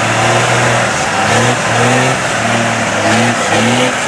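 Lifted Dodge Ram mud truck's engine revving in short repeated blips as it wades through muddy water, the engine note stepping up and dropping back several times.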